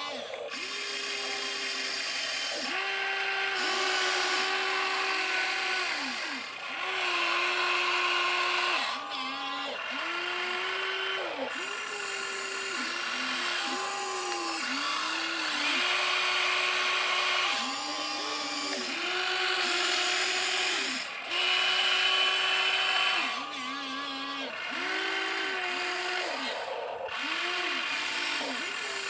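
Huina 1593 RC excavator's electric motors whining in short, overlapping runs as the boom, arm and bucket move. Each run rises quickly in pitch, holds steady for a second or two, then drops away as the motor stops.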